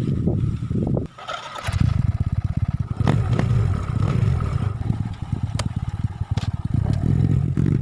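Motorcycle engine running loudly through an Apido aftermarket exhaust pipe, with a rapid firing beat; a short burst at the start drops away about a second in, then the engine picks up again and runs on.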